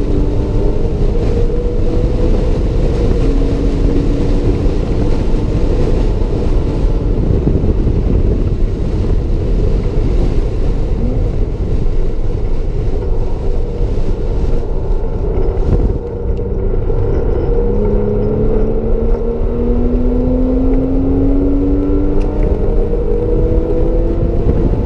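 Porsche Cayman S's 3.4-litre flat-six heard from inside the cabin under hard track driving. The engine note climbs and breaks repeatedly as it accelerates and shifts, over loud road and wind noise. A brief drop about two-thirds through is followed by a long, steady climb in pitch.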